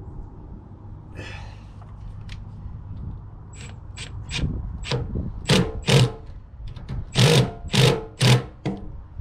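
Hand ratchet wrench worked in short strokes, drawing a nylon-insert lock nut down onto a bolt. The clicking strokes start about three and a half seconds in and come quicker and louder toward the end.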